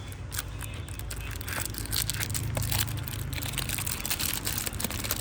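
Rustling, crinkling and small clicks of items and packaging being handled and moved about on a table, busier after about two seconds, over a steady low hum.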